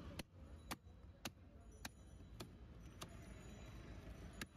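A steel knife scraping the scales off a large carp on a wooden chopping block, each stroke a sharp click, about two a second, pausing and then clicking once more near the end.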